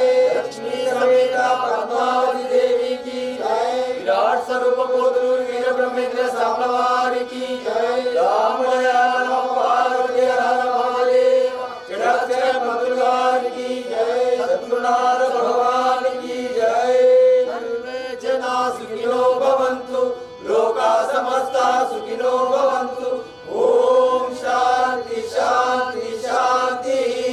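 A devotional prayer chant sung over a steady drone note.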